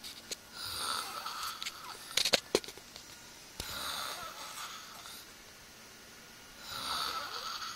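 A man snoring in his sleep: three long snoring breaths about three seconds apart. A few sharp clicks or taps fall between the first and second snore and are the loudest sounds.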